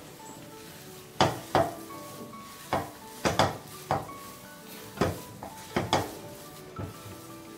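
Silicone spatula stirring thick, nearly cooked rice-rava dough in a nonstick pan, knocking against the pan about ten times at an uneven pace.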